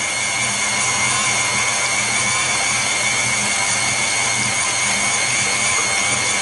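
KitchenAid stand mixer motor driving its meat-grinder attachment, running steadily with a constant whine while chicken meat is pushed through and ground.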